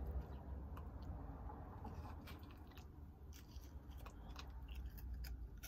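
A person chewing a mouthful of crunchy fruit-flavoured ring cereal close to the microphone, with irregular small crunches.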